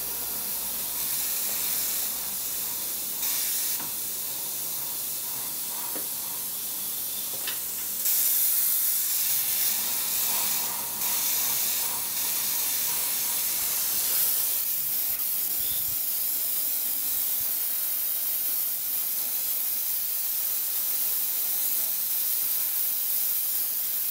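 Airbrush spraying paint: a steady high hiss of compressed air and atomised paint, louder from about eight seconds in. The paint has been thinned about 20% with leveling thinner to stop the airbrush blocking, and it now sprays smoothly.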